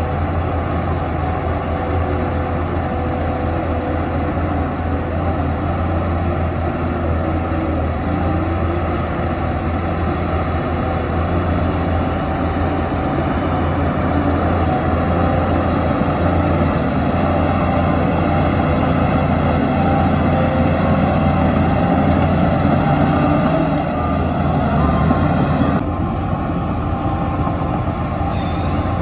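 Heavy diesel engine of earthmoving machinery running steadily with a deep drone, its pitch shifting a little as it works. A short sharp sound comes near the end.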